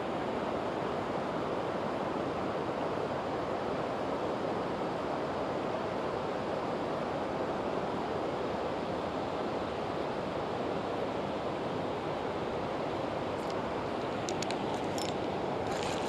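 Steady rush of river current flowing over rippled shallows, an even noise that does not change. A few faint clicks near the end.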